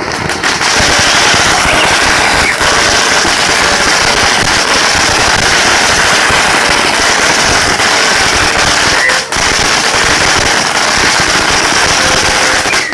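Fireworks going off in a rapid, continuous barrage of crackling bangs, with a brief break a little past nine seconds in, cutting off suddenly at the end.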